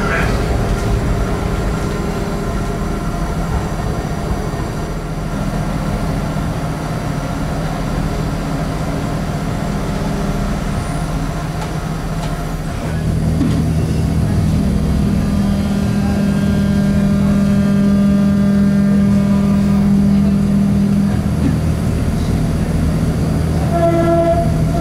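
Interior running noise of a Charleroi light-metro car: a steady hum of the traction equipment with wheel-on-rail rumble, growing louder about halfway through as the car picks up speed, with several steady higher whining tones joining it. A short tone sounds near the end.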